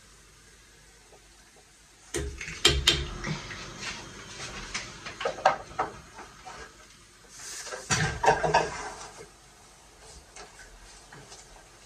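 Kitchen clatter: a spoon, dishes and a pot clinking and knocking in two bouts, starting about two seconds in and again around eight seconds.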